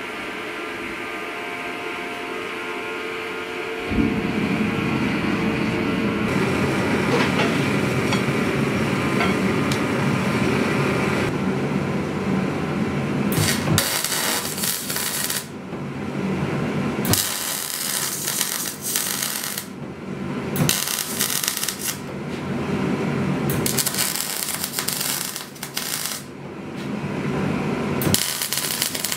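Gas forge burner and blower running with a steady hum that suddenly grows louder and fuller about four seconds in as the forge fires. From about halfway on comes electric arc welding: several crackling, sizzling bursts one to two seconds each, with short breaks between them.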